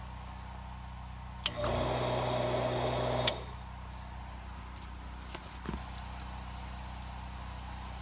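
Electric transfer pump motor humming steadily without moving water: the pump has not primed, which the owners put down to an ice plug in the line. About a second and a half in, a sharp click starts a louder, noisier sound lasting about two seconds, which stops with a second click.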